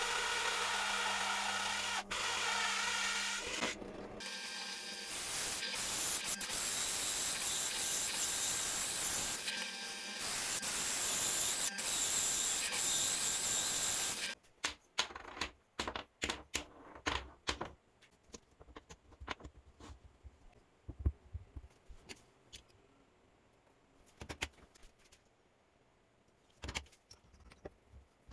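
A power tool running steadily for about half the time, then cutting off suddenly. It is followed by scattered clicks and knocks of parts being handled.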